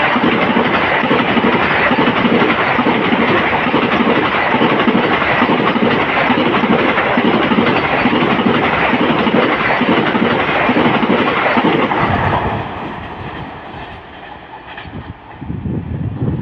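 Indian express train passing at speed, its wheels clattering rhythmically over the rail joints, loud until about twelve seconds in and then dying away.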